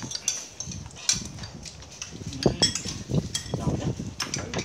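Metal spoons and chopsticks clinking and scraping against ceramic plates and bowls as several people eat, in scattered short clicks.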